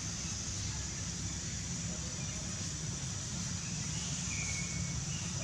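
Steady outdoor background of low rumble and high hiss, with two short high squeaks or chirps about four seconds in.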